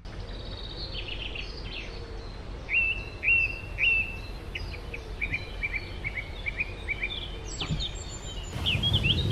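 Birds singing and chirping, with three louder hooked notes about three seconds in and a quick run of short notes after. A steady low background noise runs underneath.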